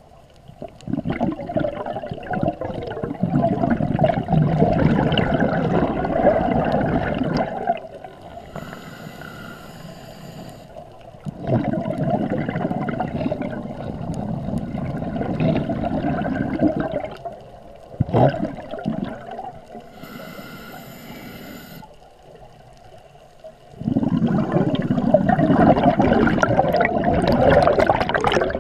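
Scuba diver breathing through a regulator underwater: three long, loud bubbling exhalations of several seconds each, with a thin hissing inhalation in the quieter gaps between them.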